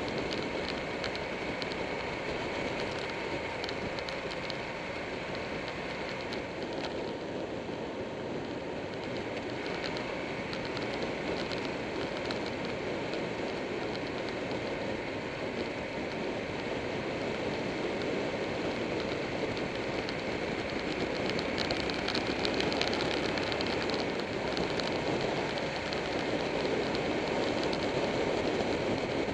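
Steady rush of wind and road noise heard from a camera mounted on a moving motorcycle, with the motorcycle's engine running beneath it; it grows a little louder in the last third.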